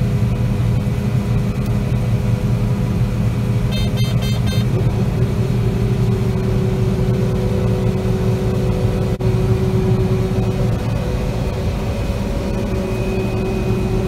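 John Deere combine harvester running steadily while harvesting soybeans and unloading into a grain cart on the go, heard from inside the cab as a loud, even drone with a low hum. A short series of high beeps sounds about four seconds in.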